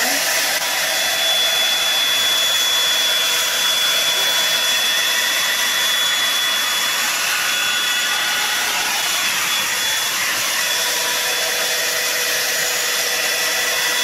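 Revlon One-Step Hair Dryer & Volumizer hot-air brush running steadily as it is pulled through a section of wet hair: a constant rush of blown air over a faint, even motor whine.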